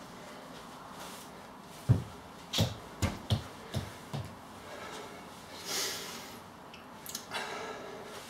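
Small rubber ball dropped onto a hard wood-effect floor: one sharp hit about two seconds in, followed by five lighter bounces over the next two seconds.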